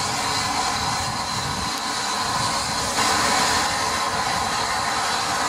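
Rebuilt Bulleid West Country class steam locomotive 34046 Braunton rolling slowly into the platform, with a low rumble from its wheels and a steady hiss of steam. The hiss gets suddenly louder about three seconds in.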